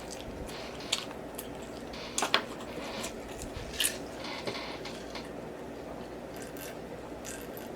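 A person chewing food close to the microphone, with soft wet mouth clicks and smacks every second or so.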